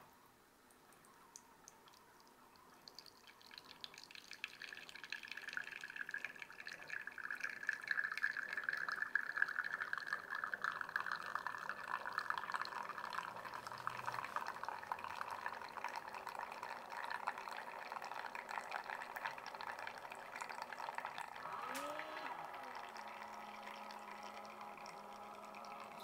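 Espresso streaming from a Meticulous espresso machine's portafilter into a small ceramic cup, a fine crackling trickle that builds a few seconds in, is strongest about a third of the way through, and slowly tapers as the shot ends. Near the end there is a faint click followed by a low steady hum.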